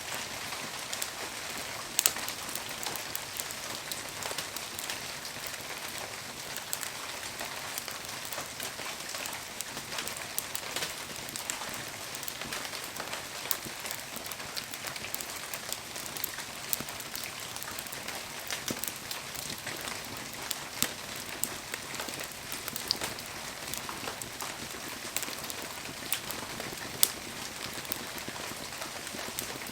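Wood bonfire burning: a steady hiss with constant crackling and scattered sharp pops of the firewood, the loudest pops about two seconds in and again near the end.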